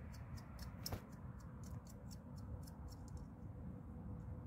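Faint, even high-pitched ticking, about four ticks a second, with one sharper click about a second in, over a low background rumble.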